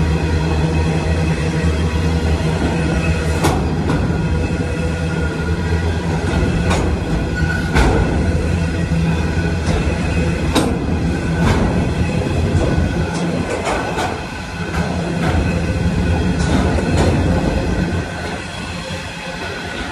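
Freight train of hopper wagons rolling past, a steady rumble with irregular clacks and clunks of wheels over the rail joints. It gets quieter near the end as the last wagons go by.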